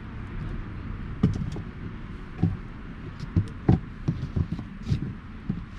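Hardwood campfire crackling, with irregular sharp pops and snaps over a low steady rumble of the burning.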